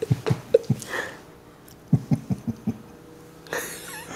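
Breathy laughter in short rapid pulses, two bursts about a second apart, followed by a rush of breath near the end.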